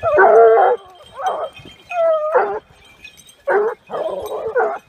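Gascon Saintongeois hounds baying in a string of about six drawn-out cries, giving tongue on the trail of a wild boar.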